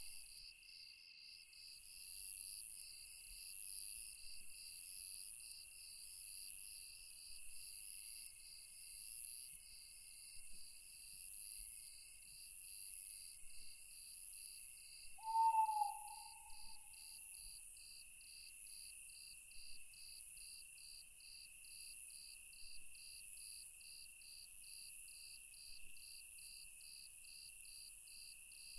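Night insect chorus of crickets, trilling steadily with one layer pulsing about twice a second. A single short owl hoot comes about halfway through.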